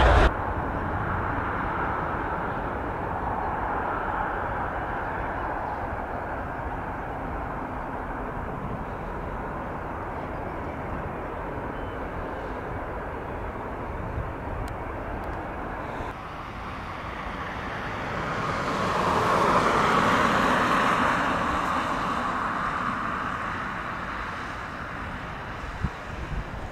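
Jet airliner engines: a steady rumble that slowly fades, then swells again about two-thirds of the way through and dies back down.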